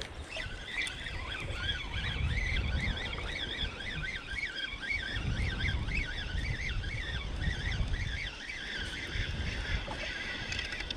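Spinning reel being cranked to bring in a hooked fish. Its gears give a whirring whine that wavers up and down about three times a second, over wind rumble on the microphone.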